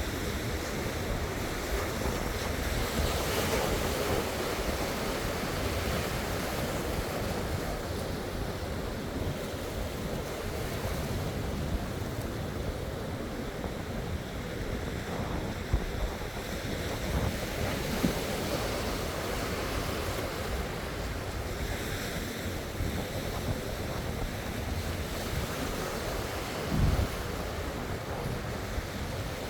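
Sea waves washing in steadily, with wind buffeting the microphone in a low rumble. A brief low thump near the end.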